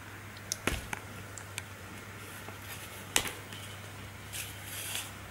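Handling of an Aquael aquarium heater with its suction-cup holder and power cord: a few sharp plastic clicks and taps, the loudest about two-thirds of a second and three seconds in, and a short rustle near the end, over a faint low hum.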